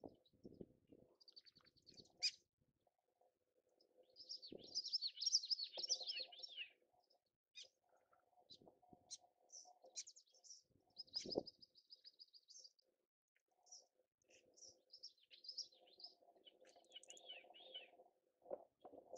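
Small songbirds chirping and twittering faintly: scattered short calls, a longer twittering song about four to seven seconds in, and another run near the end. A faint low murmur and two soft thumps, about four and a half and eleven seconds in, lie underneath.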